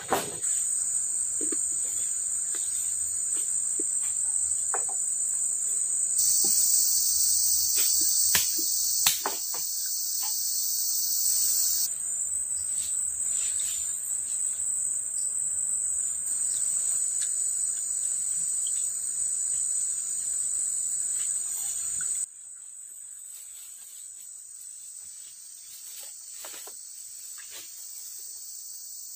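Rainforest insects calling in a steady high-pitched drone, with a second, lower-pitched insect layer joining for several seconds early on. Scattered light clicks and snaps sound over it. About two-thirds of the way through the whole sound drops sharply in level, the high drone carrying on more quietly.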